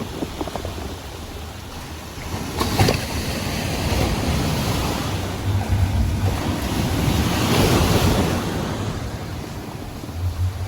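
Ocean waves breaking on a beach: a steady wash of surf that swells to its loudest about three quarters of the way through, with a sharper splash near the start. Wind buffets the microphone with a low rumble.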